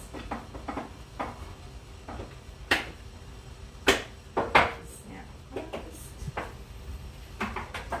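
Scattered knocks and clacks of food containers being picked up and set down while produce is gathered to go back into the fridge, about a dozen in all, the three loudest in the middle.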